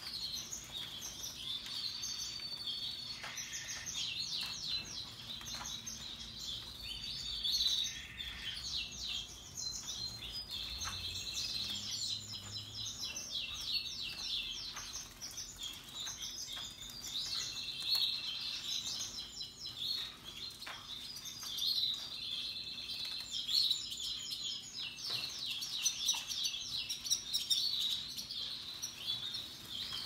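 Several caged domestic canaries singing together: long runs of rapid trills with some held whistled notes, overlapping without a break.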